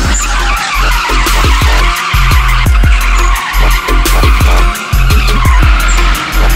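Bass-heavy music with deep sliding bass notes and a quick beat, over the noise of a car drifting with its tyres squealing.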